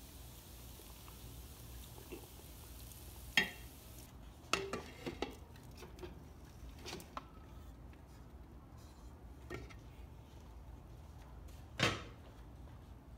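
Metal cooking pots clanking and knocking as cooked rice is tipped from one pot and scraped into an aluminium pot over a spiced potato-and-onion layer: a sharp knock about three seconds in, a quick cluster of clinks just after, and another loud knock near the end. A faint steady hiss underneath stops about four seconds in.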